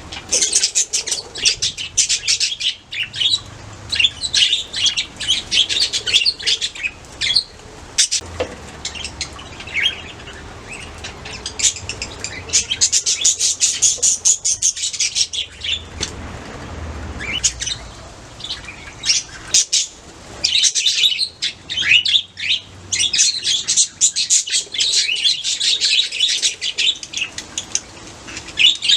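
Budgerigars chirping and warbling in a flock, with dense runs of chatter and short lulls between them. A single sharp click about 8 seconds in.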